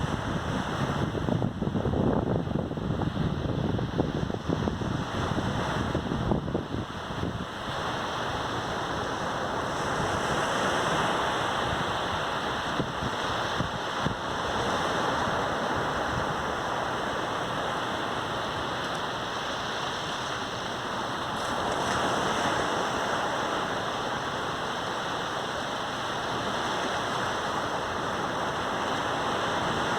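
Sea surf on a sandy beach: a steady wash of waves breaking and running up, swelling a little louder now and then. In the first several seconds wind buffets the phone's microphone with a choppy low rumble.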